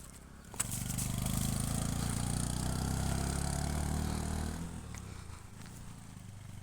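A motor vehicle's engine running close by, coming on suddenly about half a second in, holding for about four seconds and then fading away.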